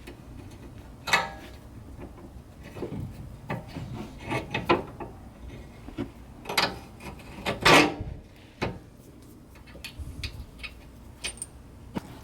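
Irregular clicks, knocks and rubbing of parts and tools being handled during a suspension control arm install. There is a sharp click about a second in and the loudest clunks between six and eight seconds.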